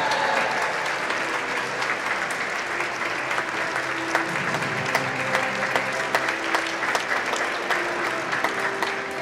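Applause: many hands clapping, dense and steady, with faint music underneath.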